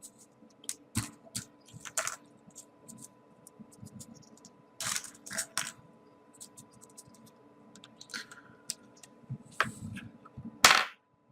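Small folded paper pieces being handled and pushed into a paper model: irregular light clicks and rustles of paper, the loudest near the end, over a faint steady hum.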